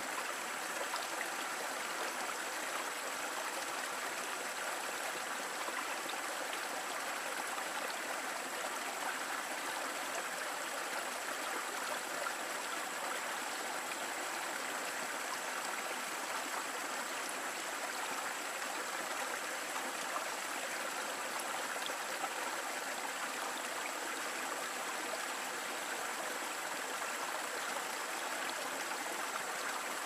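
Mountain river flowing steadily over rocks and small cascades: a continuous, even rush of water.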